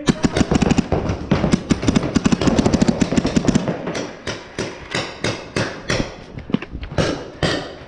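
Paintball markers firing in fast strings of shots, about eight to ten a second, then slowing to scattered single shots, with paintballs smacking against the inflatable bunker.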